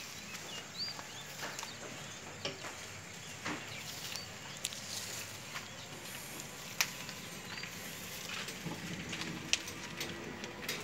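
Outdoor ambience with scattered short bird chirps and a few light clicks and knocks; a faint low hum comes in near the end.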